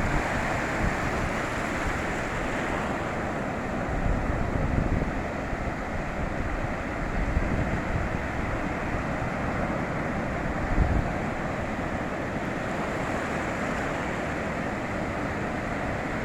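Ocean surf washing onto a beach in a steady rush, with wind gusting on the microphone in low thumps, strongest about four, seven and eleven seconds in.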